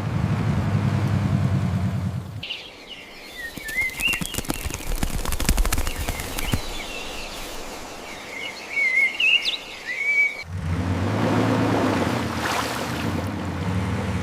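A steady low rumble with hiss gives way, about two and a half seconds in, to small birds chirping over a scatter of sharp clicks. Around ten seconds in the chirping stops and the low rumble and hiss return.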